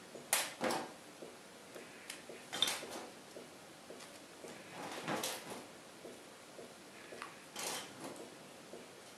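Handling noise from strips of dried chicken being laid onto a ceramic plate on a stainless-steel worktop: a handful of short scrapes and taps a couple of seconds apart.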